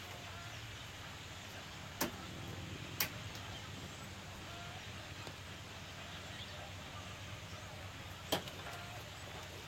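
Steel pétanque boules clacking: three sharp metallic clicks, about two seconds in, a second later, and near the end.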